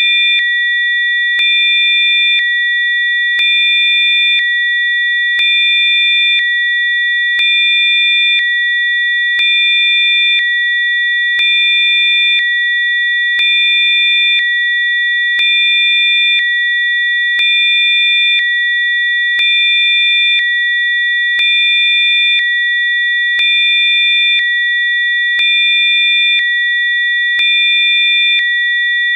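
Electronically generated Rife-frequency sine tones: several steady, high, pure tones sounding together. A fainter lower tone switches on and off about once a second, giving a slight regular pulse.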